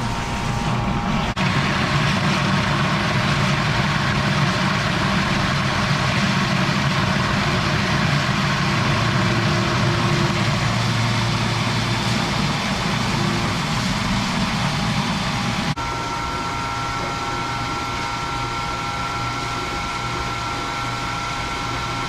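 Engine or motor running steadily at a constant speed, with two abrupt changes in tone about a second in and about sixteen seconds in.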